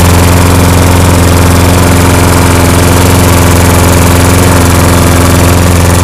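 Walk-behind rotary lawn mower engine running steadily at a constant speed. The owner believes it is running on gasoline vapor drawn through a clear line from a jug holding a little liquid gas.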